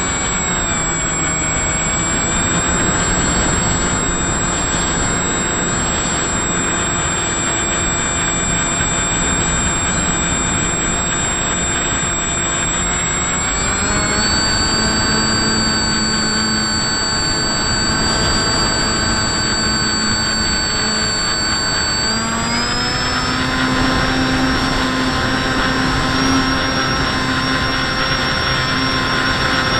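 Whine of an FPV model aircraft's motor and propeller, recorded on board, over air rushing past the camera's microphone. The pitch dips about a second in, then steps up near the halfway point and again about three quarters of the way through, following changes in throttle.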